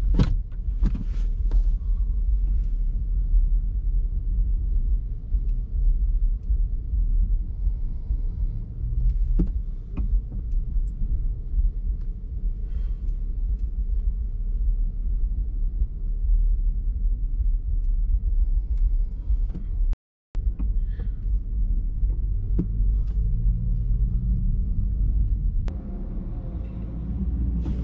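Steady low rumble of a car's engine and road noise, heard from inside the cabin as the car creeps along in slow traffic. The sound cuts out for a moment about twenty seconds in.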